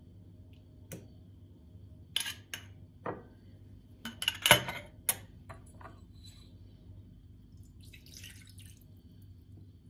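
A metal spoon clinks and scrapes against a glass bowl while a yogurt marinade is stirred, in a run of sharp clinks that are loudest about four and a half seconds in. About eight seconds in, milk is poured briefly into the bowl with a soft splash.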